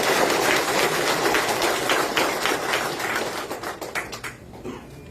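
Audience applauding, with many overlapping claps that die away about four seconds in.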